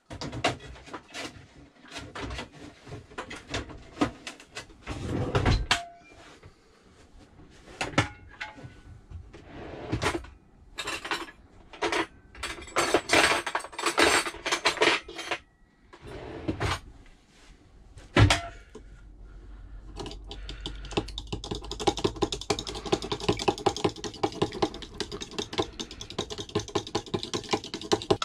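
Kitchen clatter of utensils and cookware being handled: irregular knocks and clicks, with one loud knock. From about twenty seconds in, a fork whisks eggs in a bowl, a fast steady clicking.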